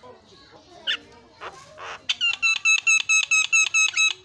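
Javan myna (jalak kebo) calling: one short note about a second in, then a rapid run of repeated ringing notes, about five a second, that stops near the end.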